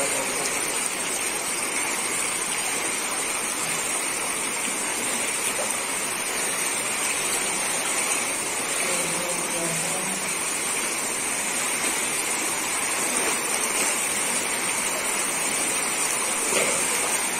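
Steady flow of river water, an even rushing hiss with a constant high-pitched buzz layered over it.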